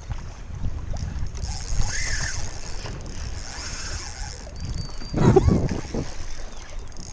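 Wind and sea water washing around an ocean kayak, with scattered seabird calls over a fish blitz and a short loud cry about five seconds in.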